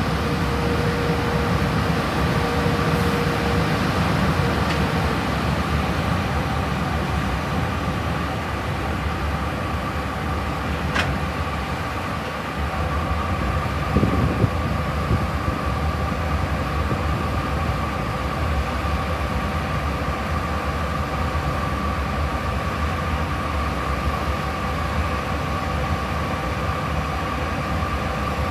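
JR Freight EH500 electric locomotive standing still, its onboard electrical equipment giving a steady hum and whine; one tone fades out about four seconds in. A single sharp click about eleven seconds in and a short knock a few seconds later.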